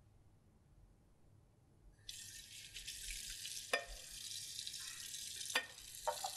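Kitchen tap running onto a plate in a sink, the steady hiss of water starting about two seconds in. The plate gives two sharp knocks against the sink and a few small clinks as it is rinsed.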